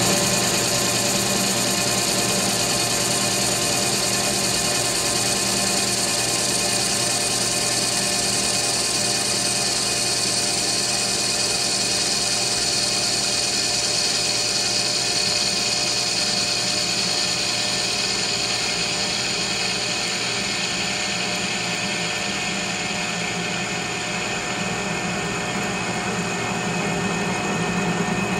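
Metal lathe running steadily through a facing cut on the end of a chrome-plated 1045 steel hydraulic rod, a carbide insert shearing the steel as it feeds across the face.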